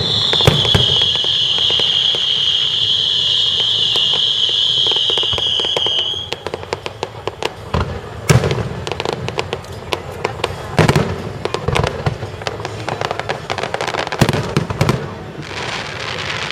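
Fireworks display: a steady high whistle holds for about six seconds over rapid crackling, then stops, followed by a string of sharp aerial shell bangs and crackles at irregular intervals.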